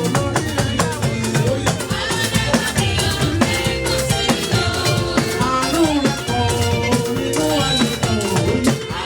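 Choir singing a hymn over a steady beat of drums and a shaker.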